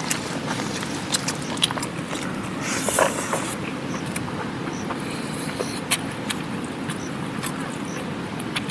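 Steady rushing of a mountain river, with scattered small clicks and a brief rustle about three seconds in.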